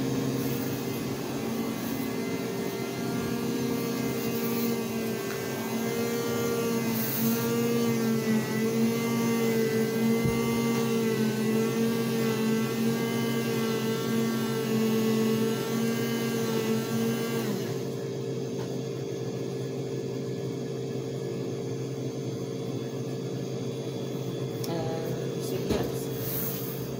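Self-serve cappuccino machine running as it dispenses into a cup: a steady motor hum with a slightly wavering whine that cuts off suddenly about eighteen seconds in, over a constant low background hum.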